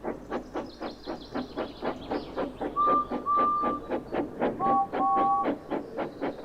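Steam locomotive running along, chuffing fast and evenly at about five beats a second. Its whistle sounds two short single-note toots about halfway through, then two two-note toots.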